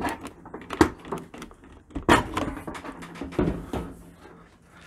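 Stainless steel front door panel of a Bosch dishwasher being pulled off by hand: a run of clicks, knocks and scrapes of sheet metal and plastic as it comes free, the loudest knocks about a second in, two seconds in and three and a half seconds in.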